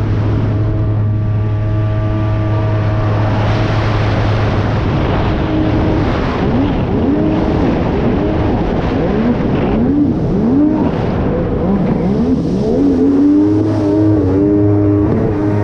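Jet ski engine running hard, its pitch rising and falling over and over, about once a second, through the middle. Near the end it settles into a steadier high-revving run. A steady low engine hum sits underneath.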